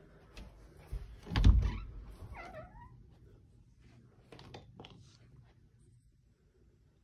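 A thump about a second and a half in, then a house cat's short meow falling in pitch, followed by a few faint clicks.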